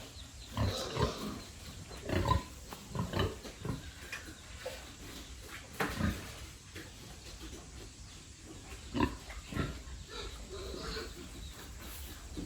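Pigs grunting: a scattered series of short, low grunts, loudest a couple of seconds in and again about nine seconds in.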